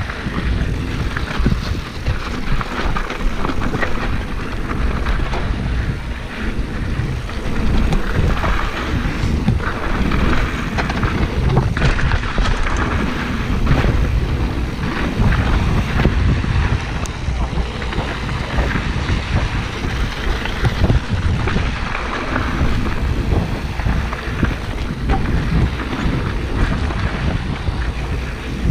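Mountain bike riding over a rough dirt trail: wind buffeting the microphone, tyres on loose dirt and gravel, and the bike rattling and clicking over bumps.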